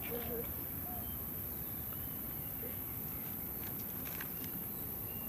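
Faint small clicks of AA batteries being handled and pushed into the battery compartment of a toy RC car, about four seconds in, over a steady low outdoor rumble. A short wavering call sounds right at the start.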